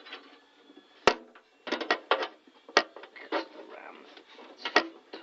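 Hard drive knocking and clicking against the metal drive bay of a budget PC case as it is slid into place: a handful of sharp knocks, the loudest about a second in.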